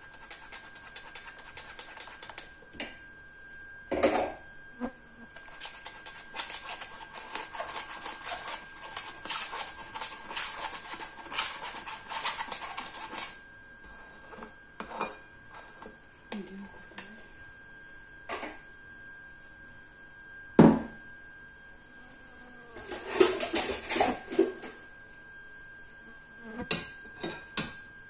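A metal spoon scraping and stirring pancake batter through a plastic strainer over a glass bowl, with scattered knocks and clinks of the spoon against the strainer and bowl. The scraping is heaviest in the first half; the loudest single knock comes about three-quarters of the way through, followed by a quick run of clinks.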